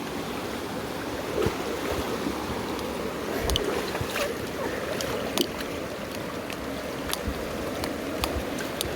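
Mountain river water rushing steadily, with scattered sharp clicks and low knocks.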